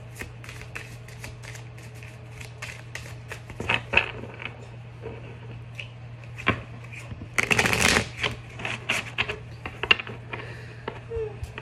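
A tarot deck being shuffled by hand: a run of quick, light card clicks, with a denser, louder rush of cards about seven and a half seconds in, over a steady low hum.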